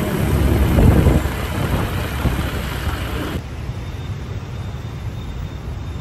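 Wind and road noise while riding pillion on a motorbike taxi in city traffic, loudest about a second in. About three and a half seconds in it gives way to a quieter, steady street-traffic noise.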